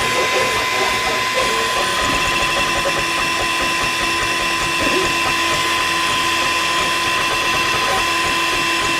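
Toybox 3D printer's stepper motors whining steadily as the print head moves while printing, with a lower hum joining about two seconds in.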